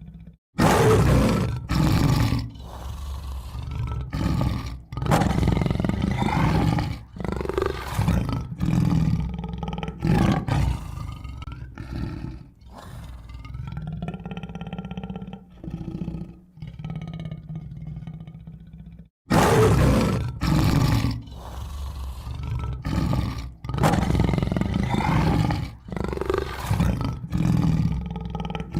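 Tiger roaring and growling in a series of loud, deep calls with long rumbling stretches between them. The sequence breaks off for a moment about 19 seconds in and starts over.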